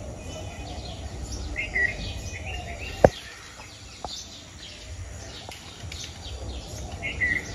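Small birds chirping and twittering over a low steady rumble of outdoor background noise. A sharp click about three seconds in, and a fainter one a second later.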